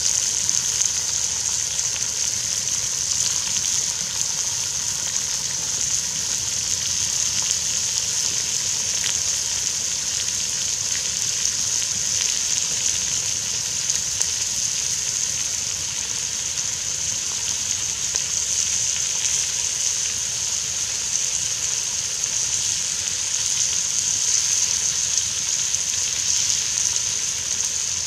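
Bacon sizzling in a cast-iron Dutch oven over a wood campfire: a steady hiss with a few faint crackles from the fire.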